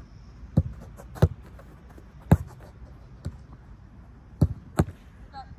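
A football being kicked and struck: about six sharp thuds at uneven intervals, the loudest about a second and two seconds in.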